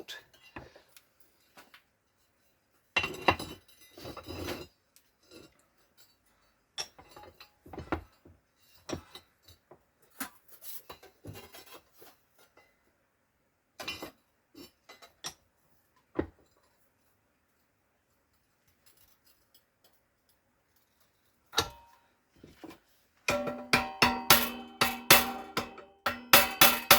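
Scattered metal clanks and knocks as a bench vise and sheet steel are handled. Near the end comes a quick run of hammer blows on the steel, each ringing with a clear metallic tone.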